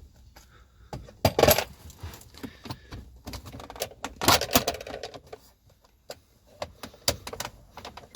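Clicks, knocks and rattles of parts and tools being handled while the gear shifter and its console trim are taken apart, with two louder bursts of clatter, one about a second and a half in and another around four seconds in.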